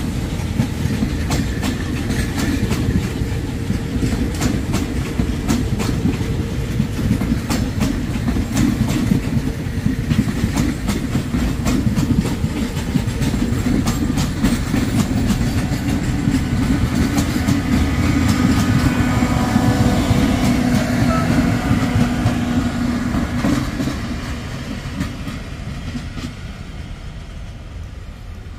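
Railway passenger coaches rolling past close by, their wheels clicking rhythmically over the rail joints with a steady rumble. About three-quarters of the way in the sound fades as the last coach goes by and the train draws away.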